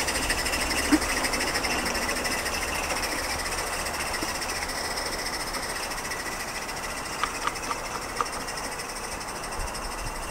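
Mamod Double Fairlie live-steam garden-railway locomotive running with a rapid, even exhaust beat, slowly fading as it pulls its coaches away. A few light clicks about seven to eight seconds in.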